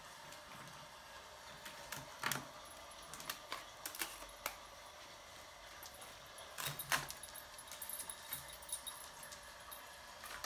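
Scattered light clicks and taps, loudest about two seconds in and again about seven seconds in, from a dog moving about on a parquet floor.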